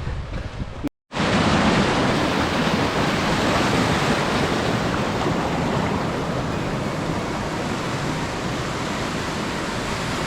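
Rain-fed waterfall cascading over rock, a loud, steady rush of water. A brief dropout about a second in marks a cut, after which the rush comes in at full strength.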